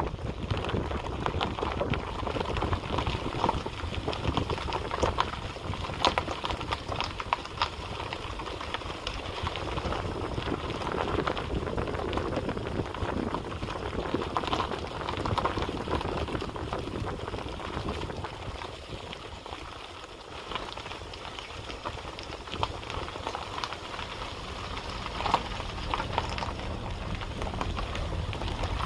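Wind rumbling on a handheld microphone under a steady crackling hiss, which eases off a little about two-thirds of the way through.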